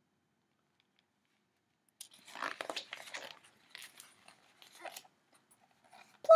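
Pages of a hardcover picture book being turned and handled: a soft papery rustle with a few clicks, starting about two seconds in. It ends with a brief, louder tone.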